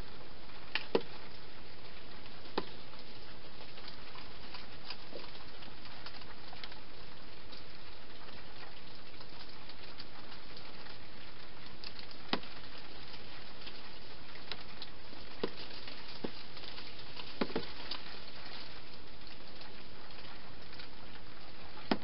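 Wild hedgehog feeding inside a clear plastic feeding box: scattered sharp clicks and crunches, a few seconds apart, over a steady hiss.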